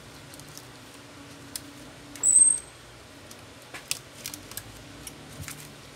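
Small clicks and light scrapes of a plastic spudger prying at connectors on a phone's mainboard during disassembly. A brief, shrill, very high-pitched squeak a little over two seconds in is the loudest sound.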